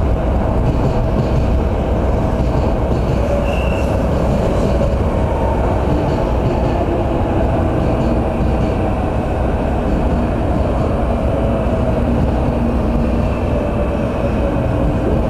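Shinkansen 300 series train rolling slowly past as it pulls into the platform: a steady rumble of wheels and running gear with a steady tone running over it.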